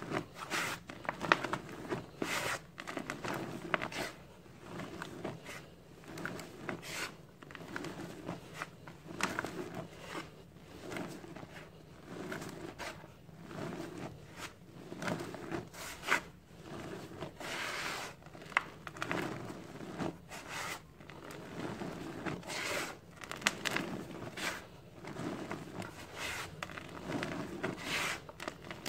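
Hands scooping, sifting and crumbling dry cement powder: a gritty rustling and pouring hiss, broken by irregular short crunching strokes as fingers rake through the powder.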